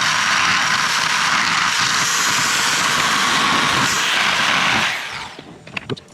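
Electric drill running steadily for about five seconds as its bit enlarges a finger hole in a plastic console lid, heating the plastic, then winding down. A few light clicks follow near the end.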